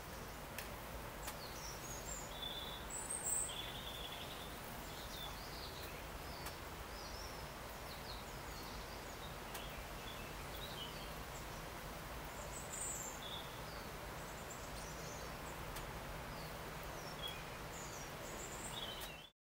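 Outdoor background noise, a steady low hiss, with faint short bird chirps scattered throughout; the sound cuts off abruptly just before the end.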